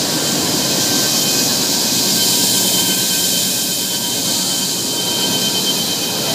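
Tea-factory processing machinery running steadily: conveyors and rotating drums carrying cut green tea leaf. The sound is a dense, even machine hiss with a few faint high whines held over it.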